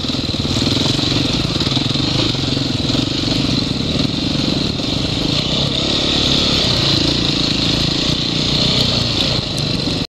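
Engine of a KTM off-road motorcycle running as it is ridden along a dirt trail, its note rising and falling a little with the throttle.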